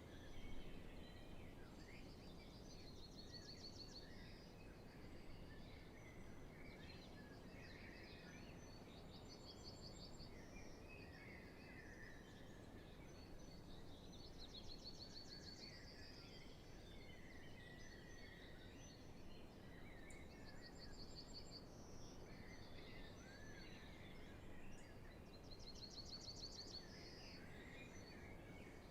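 Faint spring dawn chorus: many songbirds singing at once, one of them repeating a short high trill every five or six seconds, over a low steady background noise.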